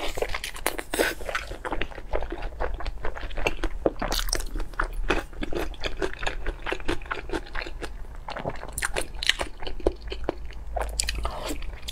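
A person biting and chewing crunchy food: a rapid, uneven run of crisp crunches and mouth sounds.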